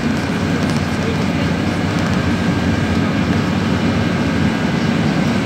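Inside a PAZ-32054 city bus while it drives: the engine drones steadily, mixed with road noise.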